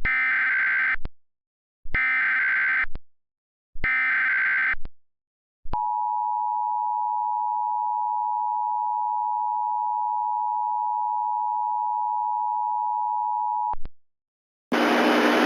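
Emergency Alert System tones: three bursts of SAME header data, each a harsh digital warble about a second long, then the EAS attention signal, a steady electronic tone held for about eight seconds. A hiss of static starts near the end.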